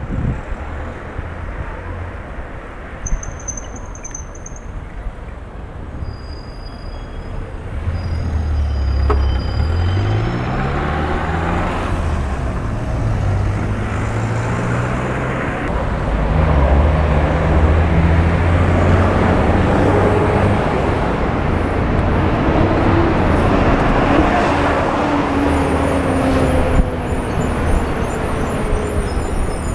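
City traffic heard from a bicycle: the engines of passing cars, vans, buses and trucks over a steady rumble of tyres. About eight seconds in, heavy engines grow louder, and one rises in pitch as it accelerates. Later, engine pitches fall as vehicles slow or pass.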